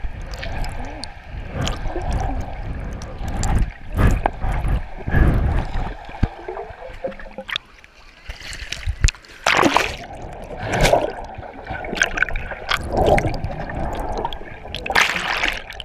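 Sea water splashing and sloshing around a camera held at the surface, which dips in and out of the water, with muffled underwater rushes and bubbling between irregular loud splashes.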